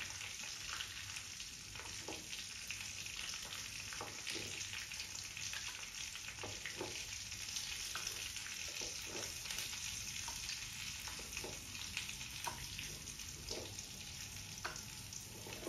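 Fatty pork pieces sizzling in hot oil in a wok, a steady hiss, with scattered light taps and scrapes of a steel ladle as the rendered fat is spooned out.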